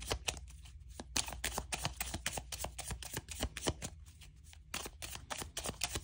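Tarot cards being shuffled by hand: a quick, dense run of card flicks and slaps, pausing briefly twice.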